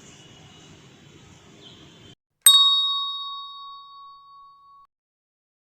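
A single bright bell ding, a notification-bell sound effect, struck about two and a half seconds in and ringing out over about two seconds.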